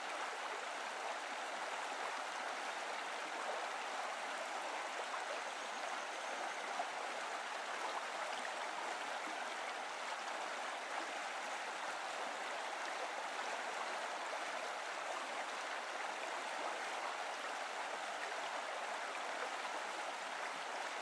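Stream water rushing steadily, an even unbroken wash of flowing water.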